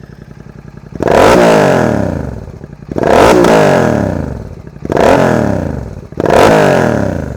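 Royal Enfield GT 650's 648 cc parallel-twin engine, fitted with a Red Rooster Performance exhaust, idling, then revved in four throttle blips, each falling back toward idle. The third blip is smaller than the other three.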